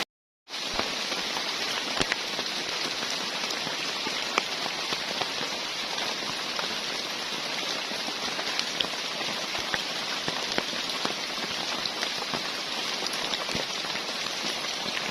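Heavy rain falling steadily, with scattered drops ticking through it. It begins after a brief silent gap at the start.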